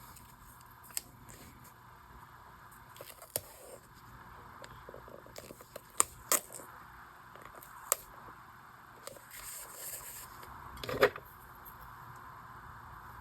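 Small handling sounds from paper and washi tape being worked on a journal page: light rustling and scraping with several sharp taps and clicks, the loudest about eleven seconds in, over a steady faint hiss.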